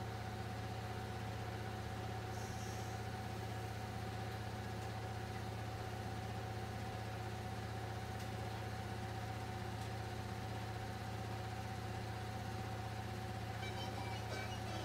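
Small electric motor of a rotating LED display turntable, running with a steady, even hum.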